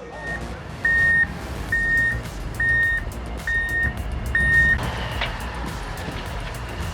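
Heavy machine's reversing alarm beeping about six times, at a steady pace of a little under one beep a second, over a low rumble. The beeping stops a little before five seconds in.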